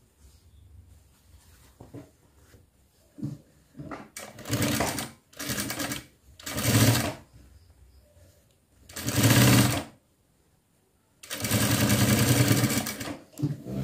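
Industrial sewing machine stitching in five short bursts, the last and longest lasting about two seconds near the end. Quiet handling of cotton fabric comes first.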